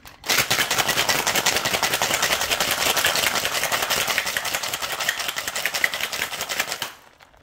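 Ice rattling hard inside a metal cocktail shaker being shaken with quick, even strokes for about seven seconds, then stopping.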